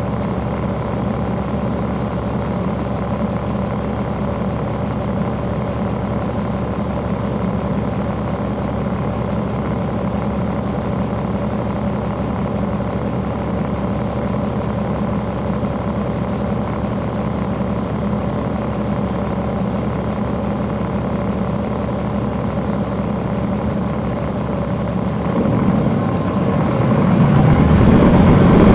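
Caterpillar C13 diesel engine of a NABI 40-foot transit bus idling steadily, heard from the rear seats inside the bus. About 25 seconds in the engine revs up and grows louder.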